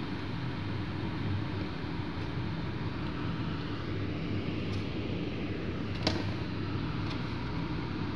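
Steady fan-like hum and hiss, with one sharp clink about six seconds in.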